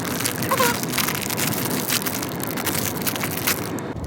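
Squishy packaging crinkling and rustling steadily as it is torn and pulled open by hand, a dense crackle of many small clicks.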